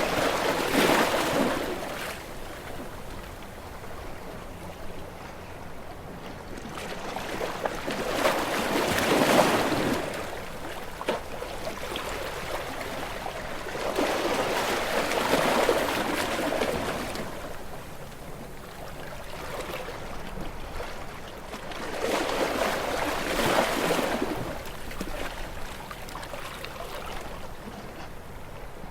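Sea waves breaking against shore rocks in four surges about seven seconds apart, each a rushing wash that swells and fades, with a softer hiss of water between.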